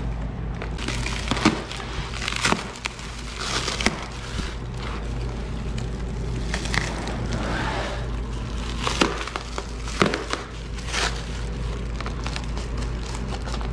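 Plastic packing bags and shrink wrap rustling and crinkling as they are pulled and handled, with several sharper crackles along the way.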